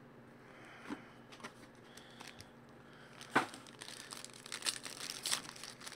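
Cellophane shrink wrap crinkling and tearing as it is stripped off a trading card box. It starts faint with a few small clicks, gives a sharp crackle about three seconds in, then crinkles densely after that.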